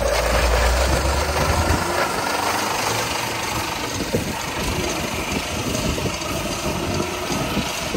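Locked rear bicycle tyres, a Maxxis Holy Roller and a Kenda, skidding on asphalt while the bikes are towed behind a car: a rough, steady scraping rumble, with the car's engine pulling. The heaviest low rumble is in the first couple of seconds.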